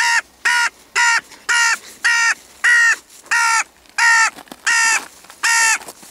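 A crow cawing loudly in a steady series of ten harsh caws, about two a second.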